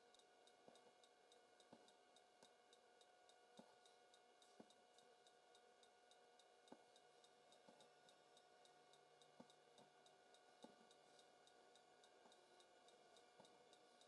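Near silence: faint, even ticking about once a second over a faint steady hum.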